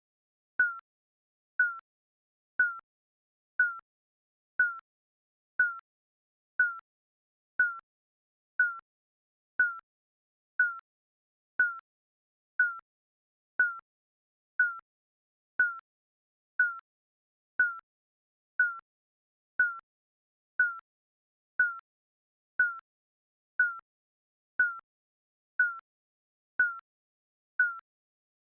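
Digital countdown timer beeping once a second, a short high beep that dies away quickly each time.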